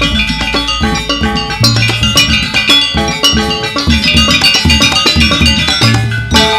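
Gamelan ensemble playing briskly: bronze metallophones ringing in quick interlocking strokes over low drum beats, accompanying a Balinese-style dance.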